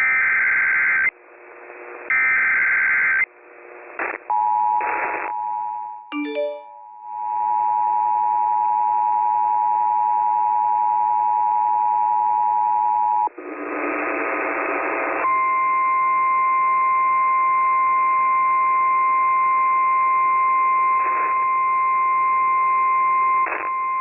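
Emergency Alert System tones. The SAME digital header repeats twice as short, harsh warbling data bursts. Then the two-tone attention signal sounds for about nine seconds, with a brief falling chirp over it about six seconds in. After a short noisy burst comes the steady single-pitch NOAA Weather Radio warning alarm tone, which heralds a tornado warning.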